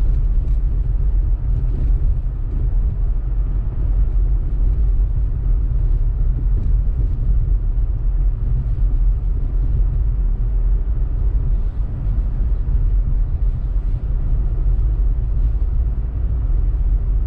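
Steady low rumble of a 2018 Honda Civic Turbo Sport hatchback driving on snow-covered road: engine and tyre noise with no distinct events.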